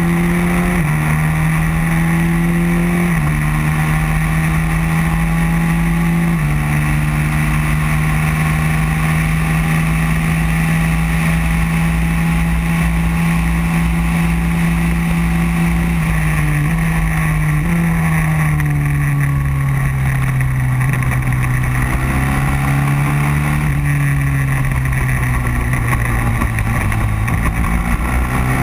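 Racing kart engine running hard at high revs, heard from on board. Its pitch holds fairly level with small steps along the straight, then dips and climbs again through the corners in the last third.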